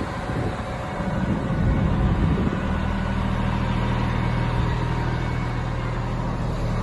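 Cummins QSM11 inline-six diesel of a Kalmar reach stacker idling with a steady low hum.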